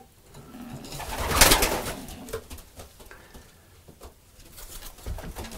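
Racing pigeons cooing in their loft, with a loud rustling rush of noise about a second and a half in.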